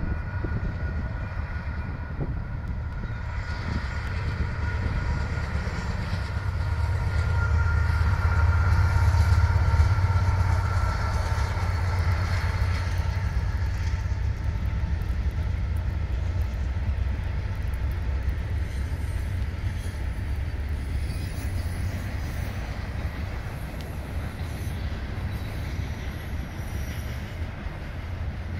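Two Norfolk Southern diesel locomotives leading an intermodal freight train pass close by. Their deep engine rumble swells to its loudest about nine seconds in, with a faint high whine above it that slides slightly lower as they go by. The steady rolling and clatter of the intermodal cars' wheels on the rails follows.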